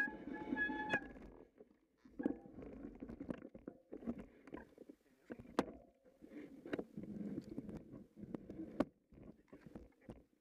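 Irregular crunching and scuffing in snow with several sharp knocks, as a mountain bike is eased slowly through a wooden gate. A squealing tone holds for about the first second.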